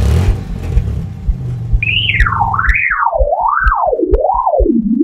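Cartoon sound effects: a low engine-like rumble for the first few seconds, then an electronic tone that swoops up and down while sliding steadily lower in pitch. Quick low heartbeat-like thumps run underneath, about three a second.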